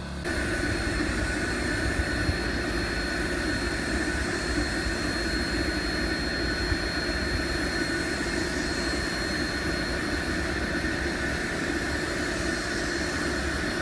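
Portable powered sprayer running steadily with a constant whine and hiss as anti-graffiti coating is sprayed onto a concrete block wall.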